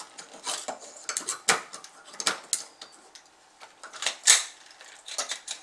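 Irregular plastic clicking and rattling from a vintage 1980s Inspector Gadget action figure being handled as its extended telescoping legs are worked back down, with a few louder sharp clicks.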